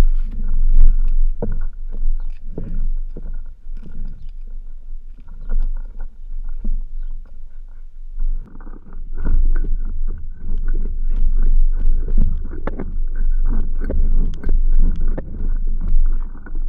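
Close handling noise from a camera strapped to a bull's head as the animal moves: a heavy low rumble with irregular knocks and rubbing against the camera housing.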